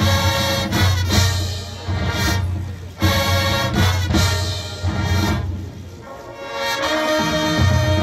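High school marching band playing: brass over drums in loud, punctuated phrases, easing off about six seconds in, then swelling back with held brass notes near the end.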